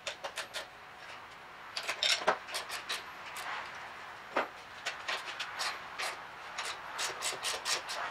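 Scattered light clicks and knocks of hand tools being handled, some in quick runs of a few, with a louder click about two seconds in and another just past four seconds.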